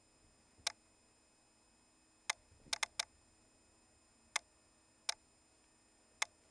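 Kittens' claws clicking on a wooden floor as they scramble in play: about eight sharp, separate clicks at uneven intervals, with a quick cluster of four a little over two seconds in.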